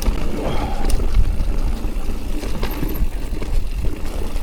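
E-mountain bike being ridden downhill: a loud, steady low rumble of riding noise on the camera microphone, with a few sharp knocks and rattles from the bike over the rough ground.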